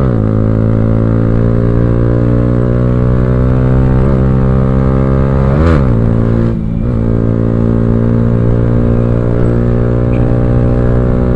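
Yamaha R15M's 155 cc single-cylinder engine running hard at speed through a loud aftermarket Akrapovic exhaust, a steady drone. Its pitch dips briefly about four and six seconds in.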